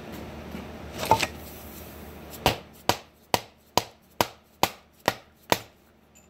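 Eight sharp strikes on the metal housing of a John Deere radial piston hydraulic pump, evenly spaced at a little over two a second, each dying away fast, after a short clatter about a second in.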